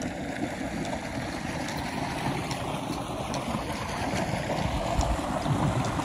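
Steady rush of water gushing from a tubewell outlet into an irrigation channel, with a low bump of wind or handling on the microphone about five seconds in.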